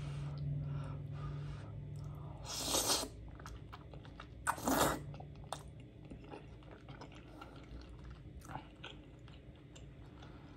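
Close-miked eating sounds of cheesy spaghetti squash: wet chewing with many small mouth clicks, and two louder slurps about two and a half and four and a half seconds in. A steady low hum runs through the first two seconds.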